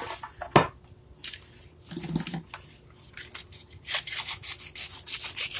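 A sheet of card stock being picked up and handled, rustling and crinkling in short scrapes, busiest in the second half.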